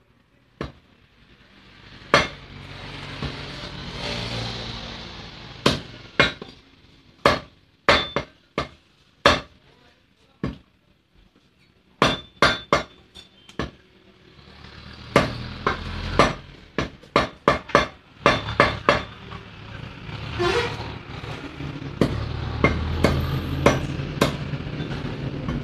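Butcher's cleaver chopping chicken on a wooden chopping block: sharp, irregular chops, some in quick runs of several strokes.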